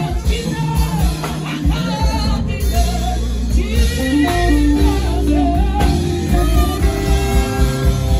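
A woman singing gospel praise into a microphone over a live band accompaniment, her melody rising and falling above a steady bass.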